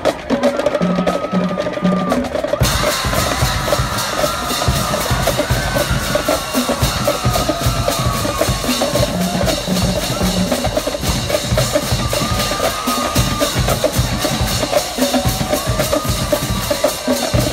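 High school marching drumline, snare drums, tenor drums and pitched bass drums, playing a fast cadence. It begins with sparse stick clicks and the full line comes in about two and a half seconds in.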